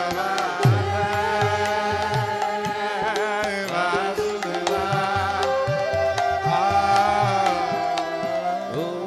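Devotional kirtan music: voices singing a chant together over a steady harmonium drone, with repeating hand-drum strokes and sitar.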